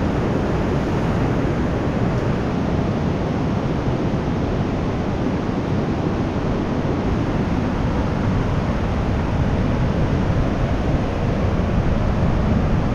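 Pacific surf washing in on a sand beach, a steady rush of noise, mixed with wind buffeting the microphone.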